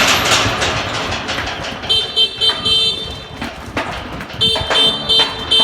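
Motorbike horn beeping in two quick runs of about four short beeps each, the first about two seconds in and the next a couple of seconds later. It is the signal the cattle are trained to answer, calling them out of the field to the shed. At the start there is a rush of noise that fades over the first second.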